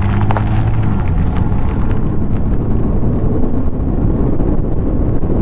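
Ford Bronco driving, heard through an outside-mounted camera: wind rushing over the microphone on top of tyre and engine noise.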